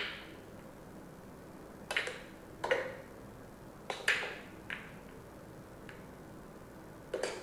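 Billiard balls clacking together in a pool-table sound effect: a handful of sharp clicks with a short ring, spaced irregularly one to two seconds apart.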